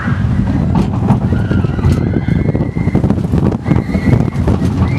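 Vekoma looping roller coaster train running fast along its steel track: a loud, steady rumble with several sharp clacks.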